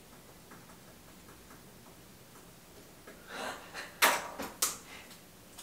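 Things being handled at a dining table in a quiet room: faint light ticks, a short rustle a little past three seconds in, then two sharp clacks about half a second apart.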